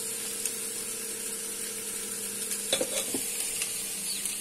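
Tofu and vegetables sizzling steadily in non-stick frying pans, with a low steady hum underneath. A few clicks and knocks come about three seconds in.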